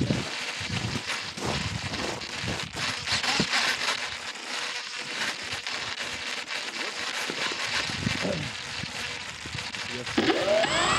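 Crackling and rustling noise on the X-UAV Talon drone's onboard camera as the airframe is handled, with scattered clicks. About ten seconds in, the propeller motor starts spinning up with a rising whine.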